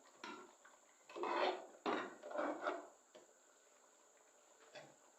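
A metal spoon scraping and knocking against a cooking pot in a few rough strokes, with a sharper knock about two seconds in and a short faint one near the end.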